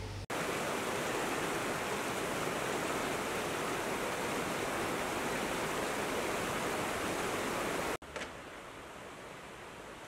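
Fast-flowing river rushing over boulders: a steady, loud hiss of white water that starts just after the beginning and cuts off abruptly about eight seconds in, leaving a fainter steady hiss with a single click.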